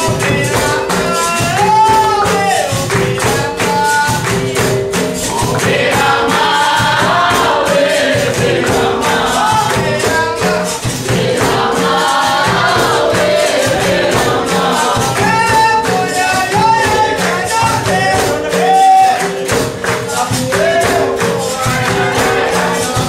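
Capoeira roda music: berimbaus and a pandeiro keeping a steady rhythm with an atabaque drum, under group singing and hand clapping.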